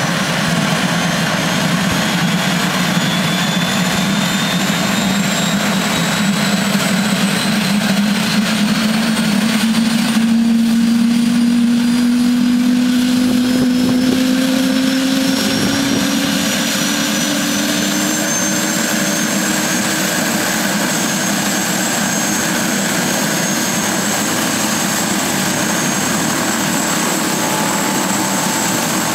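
Airbus AS350 AStar helicopter starting up: its turboshaft engine's whine and the main rotor's low tone rise steadily in pitch as the rotor spins up, levelling off in the second half.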